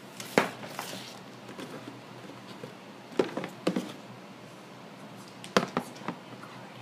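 Hands handling pieces of a plastic toy playset: a few sharp plastic clicks and knocks in three small clusters, near the start, in the middle and near the end, the first the loudest.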